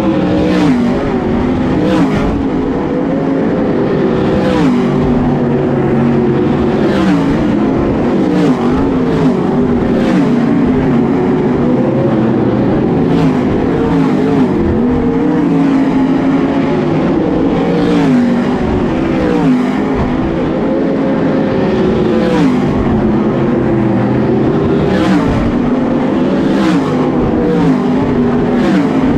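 A pack of 410 winged sprint cars racing on a dirt oval: several V8 engines run at once, their pitch dropping and climbing as the drivers lift and get back on the throttle through the turn. A car passes close every second or two.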